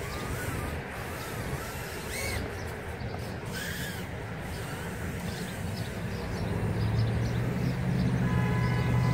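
Micro brushless quadcopter's motors whining, sweeping up and back down in pitch several times as it flips, with a steadier low hum growing stronger in the last few seconds.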